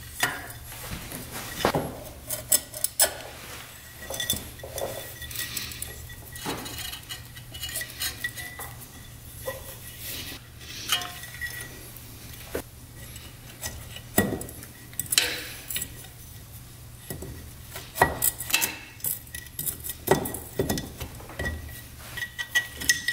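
Metal engine parts and hand tools clinking and knocking irregularly while the cylinder is fitted onto the top end of a 2005 Polaris Sportsman 500 engine, over a faint steady low hum.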